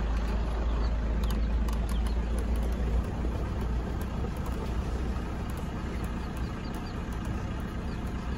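Vehicle engine running at low speed, heard from inside the cab; its low rumble drops off about three seconds in. A few faint high chirps come through over it.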